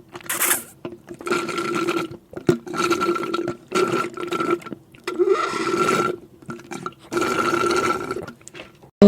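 Slurping through a drinking straw: a run of about eight short sucks, each lasting from half a second to a second, with a steady whistling tone through each.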